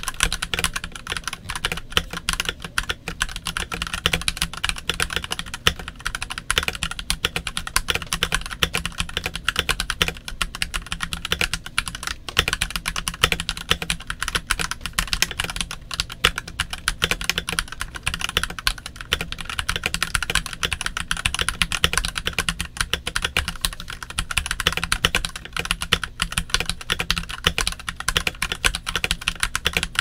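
Royal Kludge RK96 mechanical keyboard with RK Yellow switches being typed on continuously at a quick, even pace: a dense stream of key clicks and clacks, with no pause.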